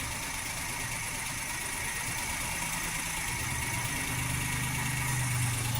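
Maruti WagonR's K-series three-cylinder petrol engine idling roughly and hunting, getting a little louder after about four seconds. The hunting is the sign of one cylinder not firing, and the mechanic traces it to cylinder 1's ignition coil or spark plug.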